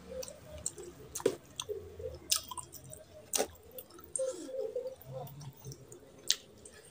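Close-miked chewing and wet, squishy mouth sounds of a man eating oily mutton curry and rice by hand, with a few sharp clicks.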